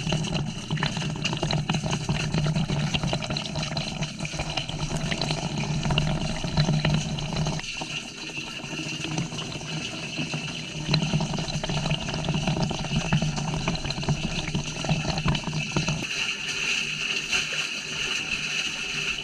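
Washing machine on its rinse cycle, heard from a GoPro inside the drum: water sloshing and splashing with many small clicks against the camera housing, over a steady motor hum. The hum breaks off briefly about eight seconds in and drops away about three seconds before the end.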